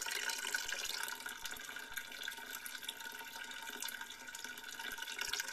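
Hot wort (the second runnings of the sparge) running from the tap of an electric brewing boiler into a plastic jug: a steady pouring, splashing stream.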